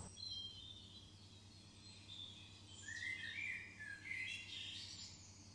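Faint birdsong: a few short chirping phrases, loudest from about three seconds in, over a low steady hum.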